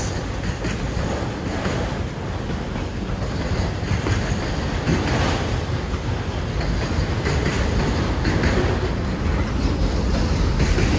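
Empty autorack freight cars rolling past: a steady rumble of steel wheels on rail, with occasional clacks as the wheels cross rail joints.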